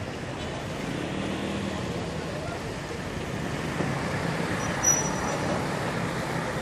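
Rain with road traffic going by on a wet street: a steady hiss of rain and tyres with a low engine hum that swells as a vehicle passes. About five seconds in there is a click and a short high tone.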